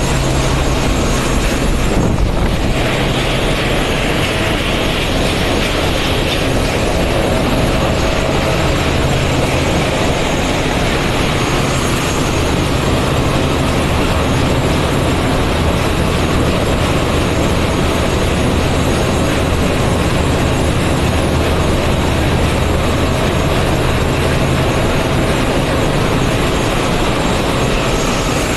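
Loud, steady din of a ship's engine room: diesel machinery and ventilation running together, with a constant low hum under a dense mechanical roar. A hiss rises about two seconds in and fades a few seconds later.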